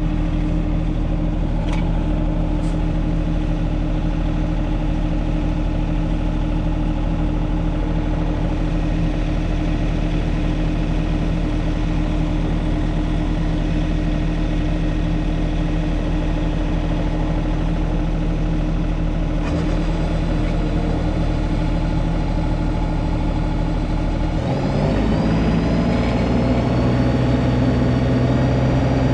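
John Deere 2032R compact tractor's three-cylinder diesel engine running steadily. Near the end it revs up and holds at a higher speed, with an added higher whine.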